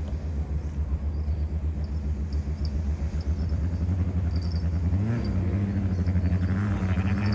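A passing boat's engine running with a steady low rumble, rising briefly in pitch about five seconds in, with a higher buzzing layer joining near the end.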